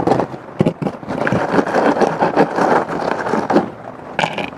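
Gritty scraping and knocking as a flowerpot and potting soil are handled during repotting, with a few sharp clicks in the first second.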